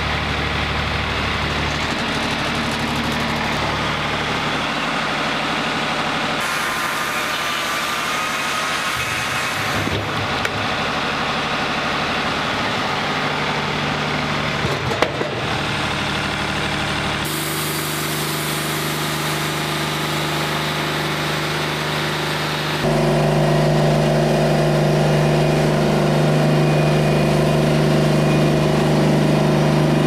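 Wood-Mizer LT40 hydraulic portable bandsaw mill running steadily while its blade saws a pine log into 2x4 boards, with a couple of short clicks along the way. The engine hum gets louder for the last several seconds.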